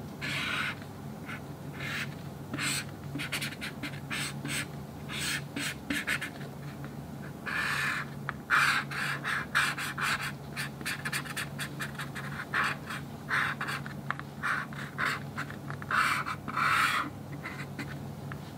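Black marker pen scratching across a shikishi board in quick sketching strokes, mostly short flicks with a few longer strokes, over a low steady hum.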